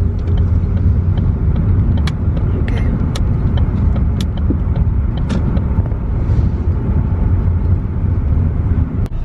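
Road and engine noise inside a moving car's cabin: a steady low rumble, with light clicks scattered through it. It drops away suddenly near the end.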